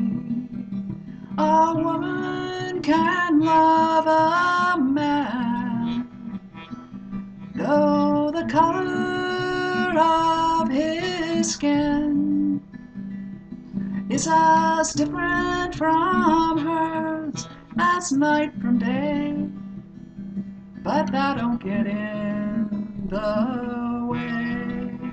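A woman singing while strumming an acoustic guitar. Her sung phrases last a few seconds each, with short guitar-only gaps between them.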